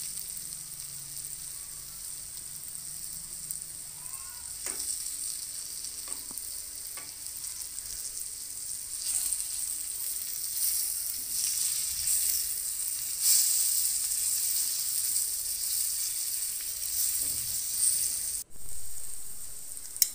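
Oil sizzling steadily around stuffed bitter gourd pieces and curry leaves frying in a pan, louder from about halfway through. A metal spoon stirring the pieces gives a few light knocks.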